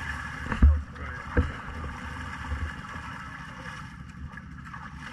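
Muddy water sloshing and splashing around an ATV stuck deep in a mud hole as it is pushed and rocked by hand, with two dull thumps about half a second and a second and a half in.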